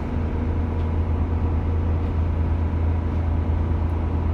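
Cruise boat's engine running with a steady low drone, with a faint constant tone above it.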